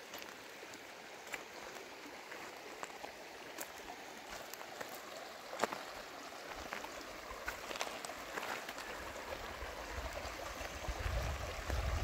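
River water running steadily over granite stones, a continuous trickling and gurgling with scattered small splashes. A low rumble builds near the end.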